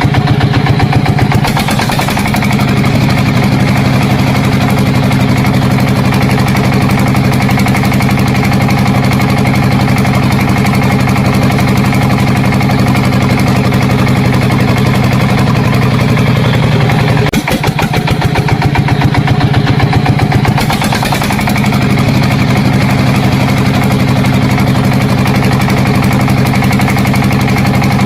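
A motor running steadily with an even pulse, like an engine at idle. Its pitch shifts slightly a couple of times.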